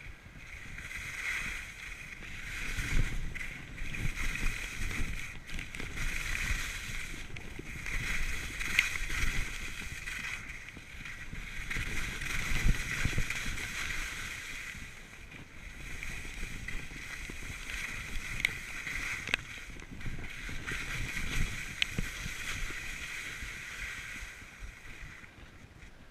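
Skis running and scraping down a hard piste, the noise swelling and easing every few seconds with the turns, with rushing wind on the camera.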